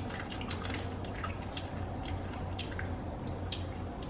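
Wet mouth clicks and lip smacks, a few every second, from people working a piece of a very hot chili chip around their mouths as the heat builds, over a steady low hum.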